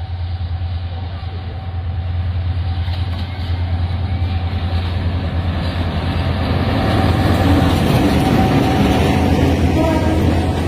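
Train running with a steady low drone, growing louder toward the end.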